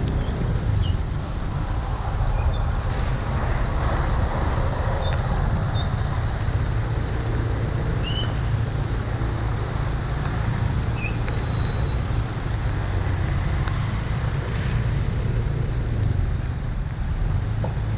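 Heavy tropical rain and traffic on a flooded street, a steady hiss over a continuous low rumble.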